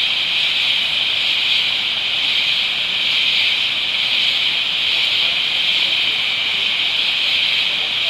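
Rainforest insects droning in a loud, steady, high-pitched chorus that holds at an even level without a break.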